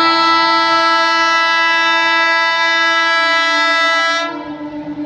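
Indian Railways ALCo diesel locomotive's air horn sounding one long, loud blast of several notes together, cutting off about four seconds in.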